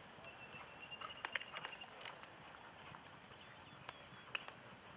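Polo ponies' hoofbeats, faint, with a few scattered sharp knocks. A thin steady high tone sounds for about a second and a half near the start.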